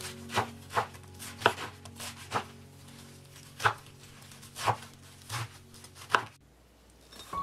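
Kitchen knife chopping soft pumpkin flower petals on a wooden cutting board: about ten separate chops at an uneven pace, stopping shortly before the end.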